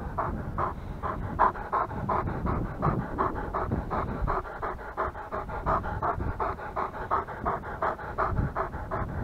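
A dog panting quickly and evenly, close by, at about five pants a second.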